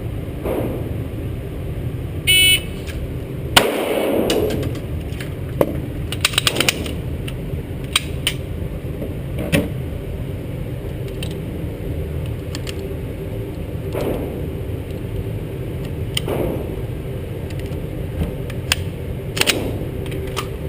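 An electronic shot-timer beep, then about a second later a single sharp 9mm Glock 17C pistol shot from a fast draw. Scattered sharp reports and clicks follow over the next seconds, including a quick cluster a few seconds after the shot.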